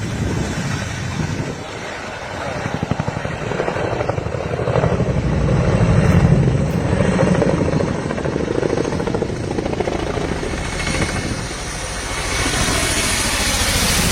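Boeing CH-47 Chinook helicopter's tandem rotors beating in flight, a rapid chopping over a heavy low rumble. It grows louder about halfway through, eases off, and rises again near the end.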